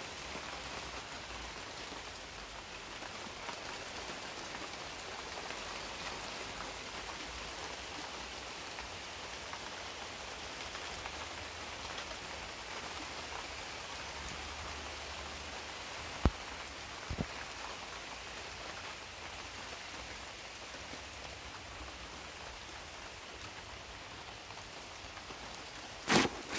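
Steady rain falling, with two faint clicks about two-thirds of the way through and a sharp knock near the end.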